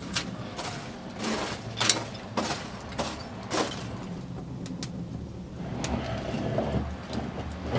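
Open wood fire crackling, with several sharp pops of burning logs over a steady low rumble of the flames.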